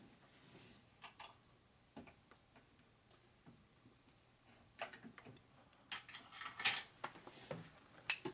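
Scattered light clicks and taps of small metal parts and tools being handled at a workbench, with a quick cluster of them about six to seven seconds in.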